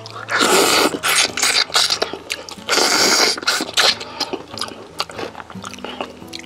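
Loud crunching of crispy roast chicken skin and scorched-rice crust being bitten and chewed close to the microphone: two long crunches, the first about half a second in and the second near the middle, with smaller crackles and clicks around them. Soft background music plays underneath.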